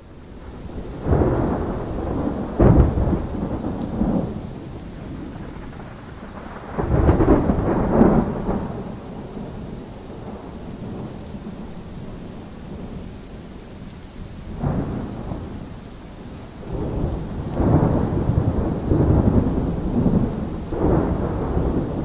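Thunderstorm: steady heavy rain with rolls of thunder swelling up several times, including a sharp crack a few seconds in and a long rumble near the end.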